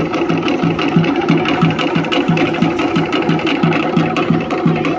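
Cook Islands drum ensemble playing a fast, busy rhythm on wooden log drums, with a steady low beat about three times a second under quick rapid strokes.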